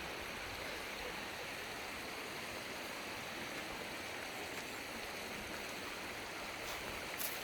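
Steady rush of running water from a stream or waterfall.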